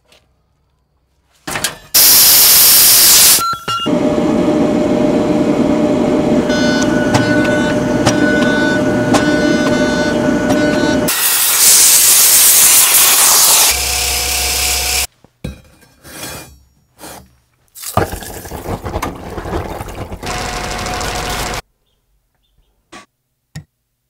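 A string of workshop metalworking sounds cut one after another. Mostly loud, steady hissing and rushing, the brightest stretch from a torch cutting through thick steel amid a shower of sparks, then shorter knocks and clatters before near silence at the end.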